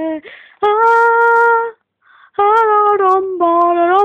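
A young voice singing long held notes with no clear words. A steady note is followed by a short pause and a breath, then more held notes that dip and rise in pitch.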